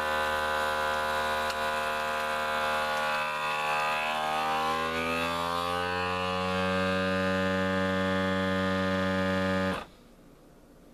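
Countertop vacuum sealer's pump motor running with a steady pitched hum, drawing the air out of a bag around a foil-wrapped block of cheese. Its pitch rises a few seconds in and then holds as the vacuum builds, and it cuts off suddenly near the end.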